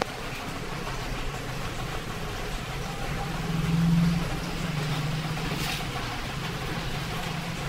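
A steady motor hum, as of an engine running, that swells to a peak about four seconds in and then eases back.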